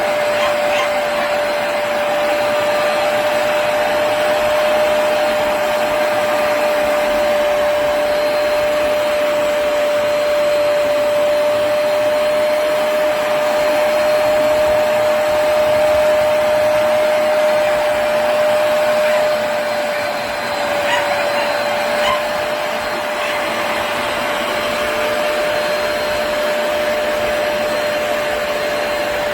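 Hoover PowerDash Pet+ compact carpet cleaner running steadily: a motor and suction noise with one steady whining tone through it, dipping briefly about twenty seconds in.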